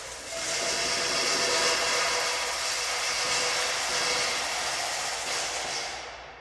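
Something poured from a small metal cup into a large metal bowl: a steady, bright hiss that fades away in the last second.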